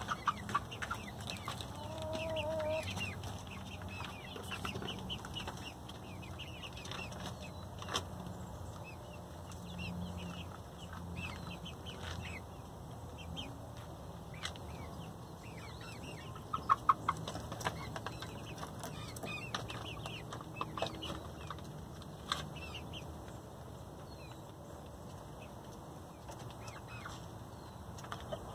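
Backyard laying hens clucking quietly, with one short pitched call about two seconds in. Short high chirps are scattered throughout, and there are a few sharp taps, the loudest a quick cluster of three near the middle.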